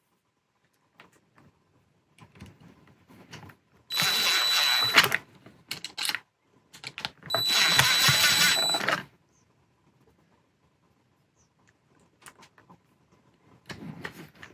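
A power drill driving screws into the crossbar's end caps, run twice in short bursts of about a second each with a steady high whine, between small handling clicks.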